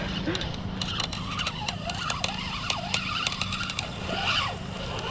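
Spinning reel being cranked to bring in a hooked channel catfish: a run of quick, irregular clicks from the reel over a steady low hum.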